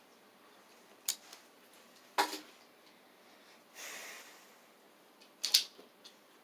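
Die-cast toy cars and plastic track being handled: a few sharp clicks and clacks, the loudest about two seconds in, with a short sliding hiss near the middle.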